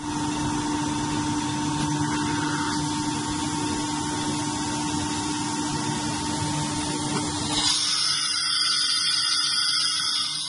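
Industrial CNC router with a carousel automatic tool changer running: a steady machine whir with a low hum, which changes about three-quarters of the way through to a louder, higher hissing whine.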